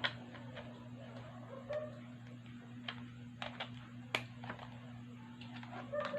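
Scattered light plastic clicks and taps of RJ45 plugs being handled and pushed into a LAN cable tester, the sharpest a little past four seconds in, over a steady low hum.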